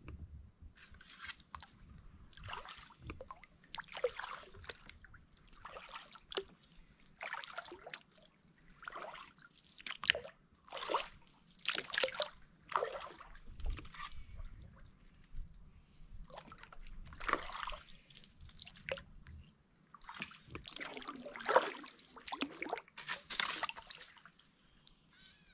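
Kayak paddle strokes in still, shallow water: irregular splashes and drips as the blades dip and lift, about one a second.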